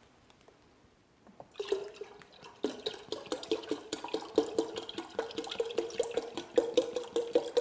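Lemon-lime soda poured from a plastic two-litre bottle into a glass pitcher of juice, glugging rapidly as it pours, starting about a second and a half in.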